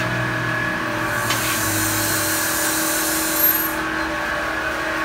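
Honda Accord K24A four-cylinder running at a steady idle through a freshly fitted Blitz Nur-Spec muffler, a constant low hum with steady tones. A high hiss comes in about a second in and lasts nearly three seconds.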